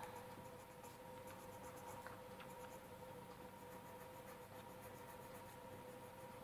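Coloured pencil strokes scratching faintly on paper as the pencil shades, over a faint steady hum.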